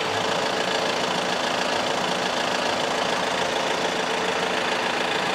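Audi A4's engine running steadily at idle, heard from underneath the car on a lift.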